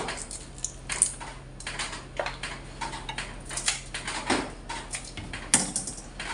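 Kitchen scissors snipping through the shells of raw shrimp to cut along their backs: a run of irregular sharp clicks and crunches, the loudest near the start, about a second in, and about five and a half seconds in.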